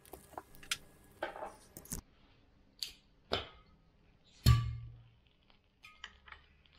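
Tabletop handling sounds at a wooden charcoal brazier: scattered sharp clicks and knocks, then one loud thump with a short low ring about two thirds in. Near the end come a few light clinks as a sake bottle is handled.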